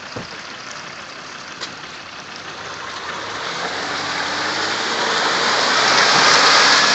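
Land Rover Discovery 4 driving into a mud bog: water and mud splashing and spraying from the tyres over the engine, building up from about three seconds in and loudest near the end.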